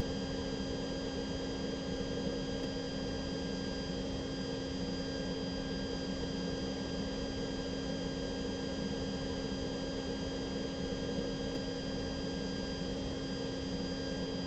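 Steady, unchanging hum with a hiss under it and a few faint, high, steady tones.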